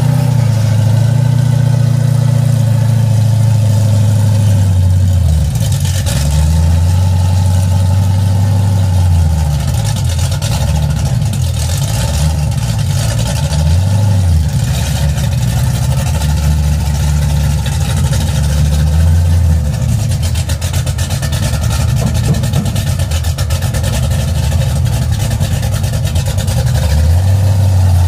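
Lowered square-body pickup truck's engine running loud through its exhaust, a deep rumble that swells and drops several times as the throttle is blipped.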